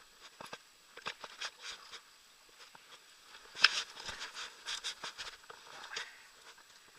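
Irregular light clicks and rustles, several a second, with one sharper click and rustle about three and a half seconds in.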